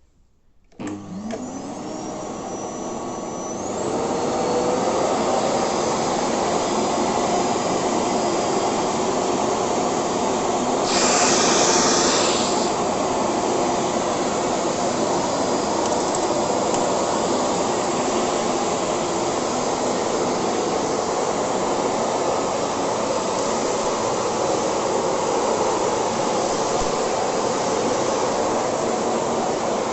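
Philips Series 3000 Performer Compact 900 W bagged vacuum cleaner switched on about a second in, its motor spinning up with a rising whine and settling into a steady run after a few seconds. Around eleven seconds in there is a brief louder rush of air, then it runs steadily on.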